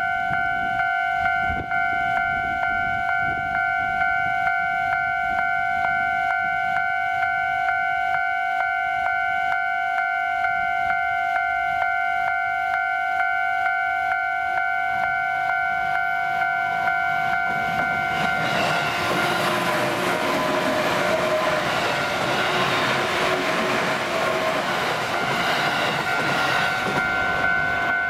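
A level-crossing warning bell ringing steadily with a regular pulse while a JR 205 series electric commuter train approaches. From about two-thirds of the way in, the train passes close by, its wheels and running gear drowning out the bell, which is heard again near the end.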